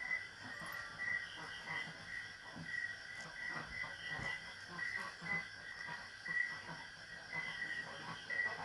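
Insects chirping in the forest: a steady high trill that pulses a couple of times a second, with faint irregular rustles and knocks underneath.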